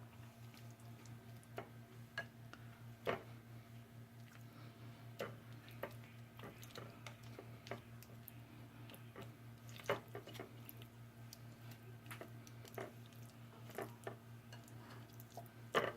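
Chicken wings being tossed and pressed in panko breadcrumbs: scattered soft clicks and crackles at an uneven pace, over a steady low hum.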